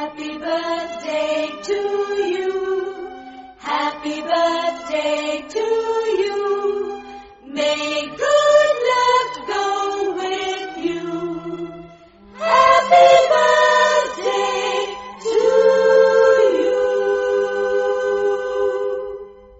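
Choir singing a cappella: four sung phrases with short breaks between them, the last ending on a long held note.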